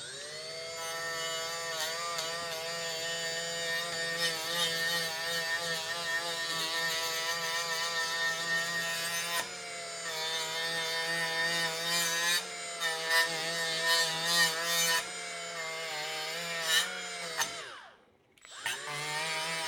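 Cordless die grinder spinning up to a steady whine and grinding rust off a steel scraper with an abrasive pad, its pitch dipping briefly about halfway through. It winds down near the end, then runs again for a moment.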